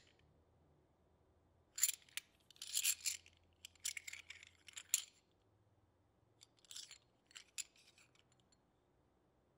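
Cast fine silver (.999) two-troy-ounce coins clinking against each other as they are shuffled in the hands: clusters of bright metallic chinks, fainter and sparser near the end.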